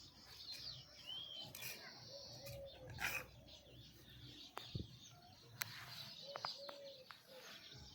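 Faint bird calls: a short high chirp about a second in and several low, short calls scattered through, with a few sharp clicks.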